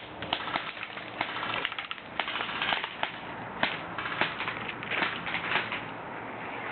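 Scattered airsoft gunfire: irregular sharp clicks and short quick strings of shots.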